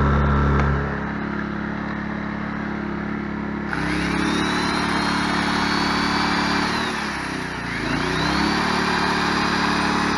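Sportsman 1000-watt inverter generator running steadily, its engine note dropping about a second in. About four seconds in, a corded electric drill powered by it spins up with a rising whine and runs. Around seven seconds it winds down, then spins up again about eight seconds in, while the generator takes the load.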